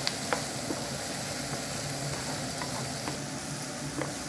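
Chopped onion and sliced garlic sizzling in hot olive oil in a nonstick frying pan, stirred with a wooden spoon that scrapes and knocks against the pan. There are a few sharp clicks, the loudest just after the start and another near the end.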